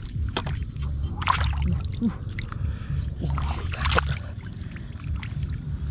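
Shallow muddy water splashing and sloshing as hands grab at a koi and the fish thrashes, with two louder splashes, one about a second in and one near four seconds. A steady low rumble runs underneath.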